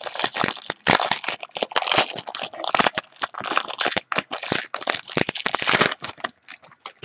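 A foil trading-card pack wrapper being torn open and crinkled in the hands. The crackling is dense, then thins to a few clicks about six seconds in.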